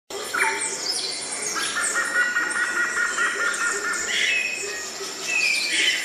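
Several birds chirping and calling, with a fast pulsing trill that lasts about two and a half seconds.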